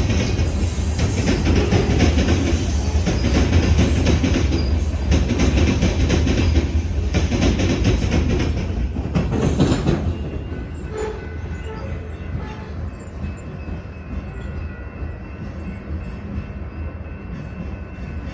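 Union Pacific two-bay hopper cars rolling past, wheels clicking over the rail joints. About ten seconds in, the noise drops sharply as the end of the train passes, leaving a quieter fading rumble.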